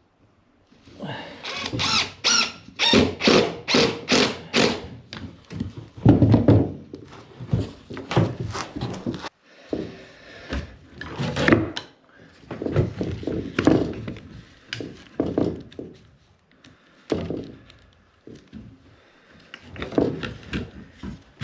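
Irregular knocking, thudding and clattering of hand work with tools and wood in a small room, in quick runs of knocks with short pauses between.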